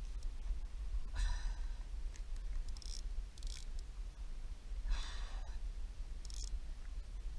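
Heavy breaths from an angler straining on a bent rod against a hooked fish: two loud exhales about a second and five seconds in, with shorter faint hisses between them. A steady low wind rumble on the camera microphone runs underneath.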